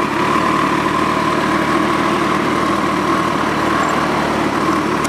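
Kawasaki Ninja ZX-14R's inline-four engine idling steadily at about 1,000 rpm.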